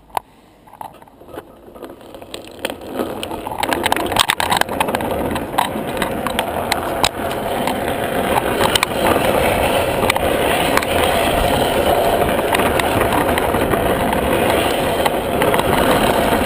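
Wheels of a downhill trike rolling on asphalt as it coasts down a road. The rolling noise swells over the first few seconds as it gathers speed, with a few knocks and rattles at the start, then holds steady and loud.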